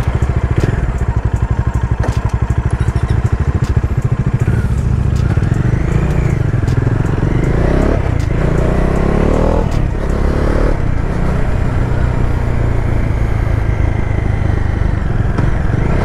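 Bajaj Dominar 400's single-cylinder engine pulling away and accelerating. The revs rise and drop with gear changes in the first ten seconds, then settle into a steady cruise. The gearbox is shifting stiffly and clunking, which the rider finds a hard gear shift on this new bike.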